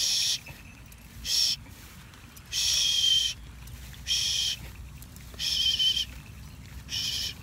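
Harris's hawk on the fist calling over and over: six harsh, high screams, each under a second, about one every 1.3 s. This is the repeated screaming a hawk gives when it wants food.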